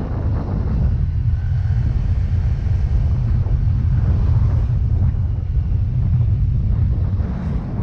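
Steady low rumble of wind buffeting the microphone while riding a Yamaha Mio Gravis scooter, with the scooter's engine and road noise underneath.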